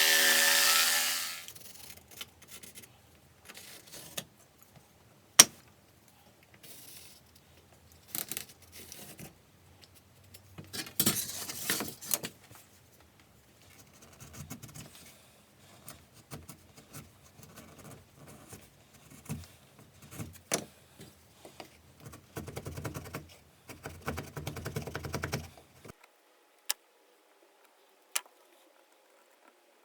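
A power tool running, which cuts off about a second and a half in. It is followed by scattered handling sounds of tools at a workbench: sharp clicks and knocks, and short bursts of scraping and rubbing, the longest two near the middle and about three-quarters of the way through.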